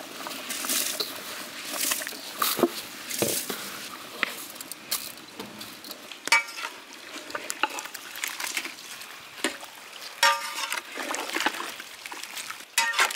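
Long-handled metal ladle stirring rice into boiling chicken broth in a large metal cooking pot, scraping and clinking against the pot wall with repeated short knocks while the liquid sloshes and bubbles. It is the stage of a biryani where the soaked rice goes into the boiling broth.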